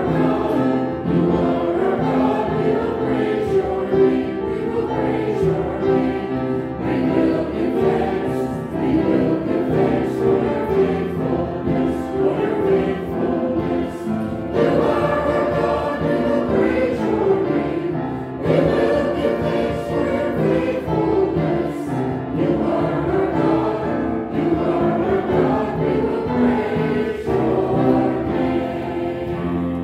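Choir and congregation singing a hymn together with piano accompaniment, in sung phrases with short breaths between them. The singing ends right at the close.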